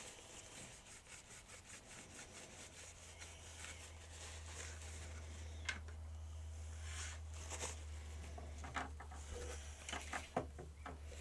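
Faint rubbing and scraping with scattered light clicks from hands working on a plastic toy part, over a low steady hum.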